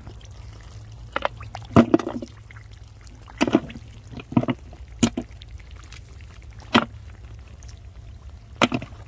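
Shallow muddy water splashing and dripping as a hand dips in and lifts snails out, in a string of short separate splashes and drips.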